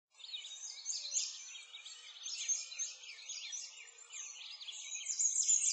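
A chorus of songbirds, many quick overlapping chirps and twitters, going on steadily.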